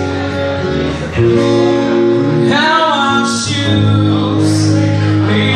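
Live acoustic band: two acoustic guitars strummed together, with a male lead voice singing over them through the PA.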